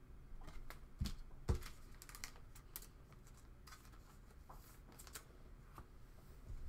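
Scattered light clicks and taps, with two soft thumps about a second in.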